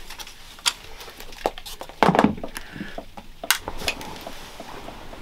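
Handling noises on a boat's wooden cabin floor: scattered clicks and knocks of hard objects being moved and set down, the loudest a bump about two seconds in, then a sharp click about a second and a half later.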